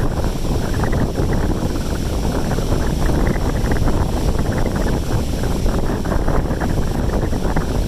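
Strong storm wind buffeting the microphone: a loud, dense rumble with constant fluttering gusts.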